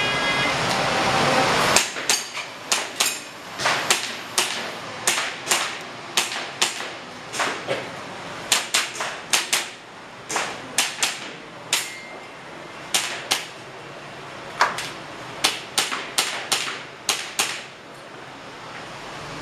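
Airsoft pistol firing a long string of sharp shots, mostly in quick pairs and runs with short pauses between, starting about two seconds in and stopping shortly before the end.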